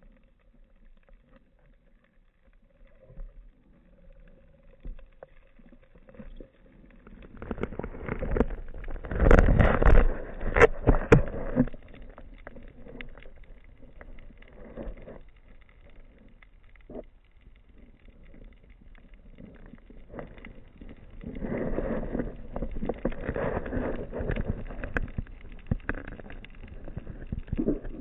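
Muffled water and handling noise picked up by an action camera in its underwater housing: dull rushing and knocking, quiet at first, with a loud stretch of sharp knocks and clicks about eight to twelve seconds in and another noisy stretch near the end.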